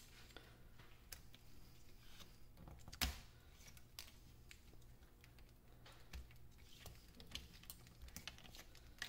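Faint scattered clicks and light knocks of 18650 lithium-ion cells being pushed out of the pack's plastic cell holder and knocking together in the hand, with one sharper click about three seconds in.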